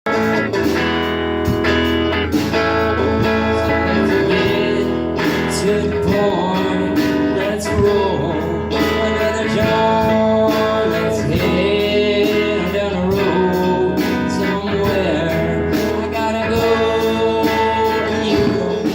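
A band jamming live: electric guitar-led music with a bluesy feel, playing continuously.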